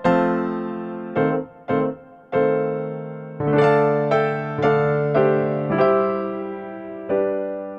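Background music: an electric piano plays a slow, gentle tune of struck notes and chords, each note fading away before the next.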